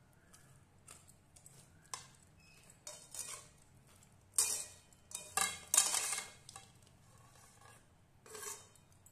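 A metal slotted spatula scraping and clattering against a metal wok while stirring food. The strokes come irregularly, loudest in a cluster in the middle, with one more near the end.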